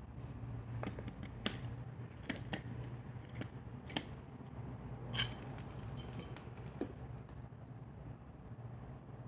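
Light metallic clicks and taps of box-fan motor parts being handled during oiling, the loudest about five seconds in with a brief jingling ring, over a low steady hum.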